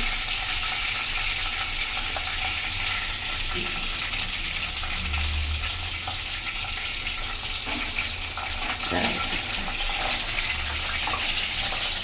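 Flour-coated chicken pieces sizzling as they shallow-fry in hot oil in a pan, a steady hiss.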